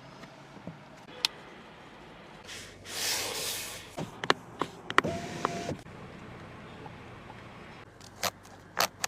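Mechanical clicks and knocks from an SUV's fittings, with an electric motor whirring for about a second, a short beep about five seconds in, and a few more clicks near the end.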